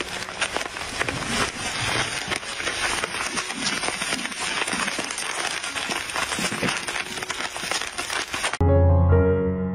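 Dense, continuous crackling and rattling of popcorn in a hot wok as it is stirred with a wooden spatula. Near the end it cuts off abruptly and piano music starts.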